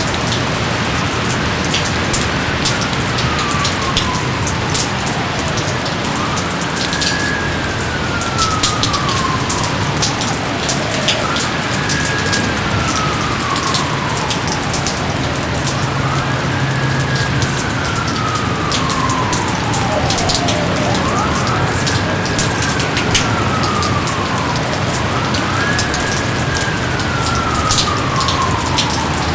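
Steady rain with distinct drops striking surfaces. Through it, a gliding tone rises quickly, then falls slowly over three or four seconds, repeating about every four to five seconds.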